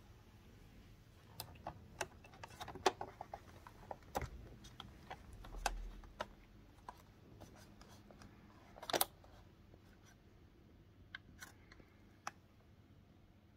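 Faint handling sounds: scattered clicks, taps and short rustles of parts and packaging being handled, with a dull thump about four seconds in and a louder rustle near nine seconds.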